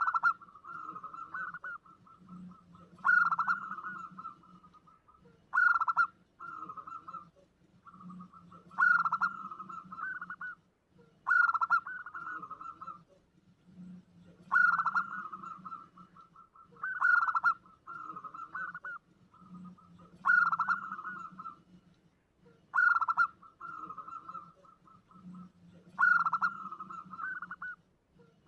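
Zebra dove (perkutut) cooing, a lure call: about ten phrases, each opening with a loud note that runs into a quick rattling trill, repeated every two and a half to three seconds.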